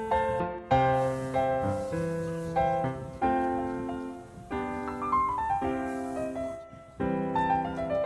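Background piano music: struck chords and notes that fade, with a short falling run of notes near the middle.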